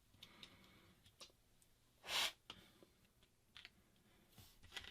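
Faint clicks and taps of small phone parts and tools being handled during a smartphone screen repair, with one brief, louder rustling noise about two seconds in.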